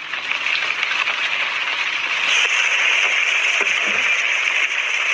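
A steady hiss of noise, growing louder about two seconds in.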